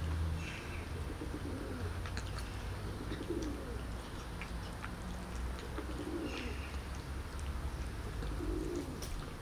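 Pigeons cooing, a low call repeated every two to three seconds, over a steady low rumble, with a few small-bird chirps and faint clicks as cats chew their food.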